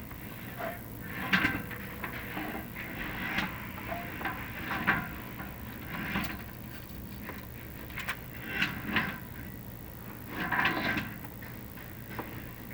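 Chimney inspection camera scraping and rubbing against the clay flue tile as it is worked along the flue, in irregular bursts every second or two over a low steady hum.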